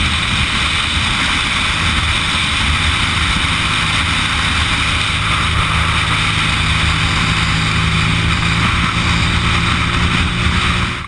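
Heavy wind rushing over a helmet-mounted camera while riding at road speed on a BMW R80RT, with the motorcycle's air-cooled boxer-twin engine droning steadily beneath it. The rush cuts off suddenly at the end.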